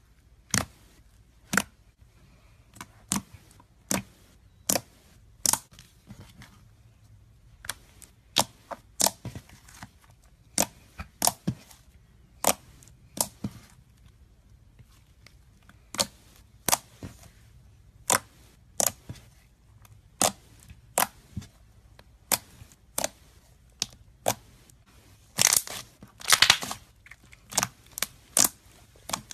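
Slime being squeezed and poked, giving sharp pops and clicks about once or twice a second, with a louder run of crackling about three-quarters of the way through.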